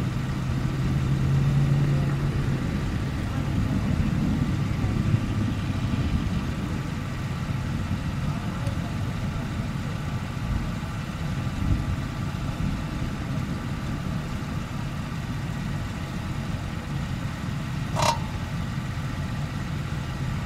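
Steady low rumble of storm wind on the microphone with a vehicle engine running, and one short sharp click-like sound near the end.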